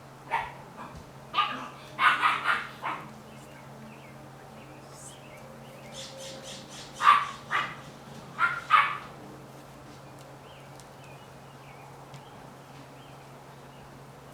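Seven-week-old Vizsla puppies barking in short, sharp yaps. The yaps come in two clusters: several in the first three seconds, then another run at about seven to nine seconds.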